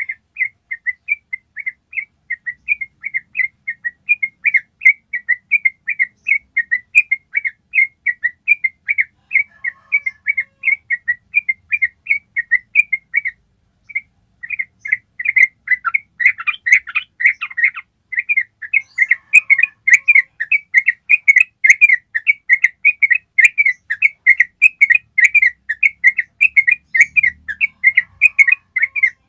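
Yellow-vented bulbul singing a long, unbroken 'ropel' run: quick repeated whistled notes, about four a second, with a brief break near the middle and a louder, fuller stretch just after.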